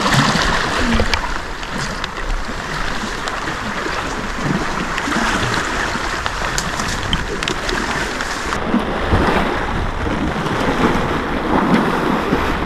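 Asian elephant wading through a shallow lake, its legs churning and splashing the water in a steady wash of noise.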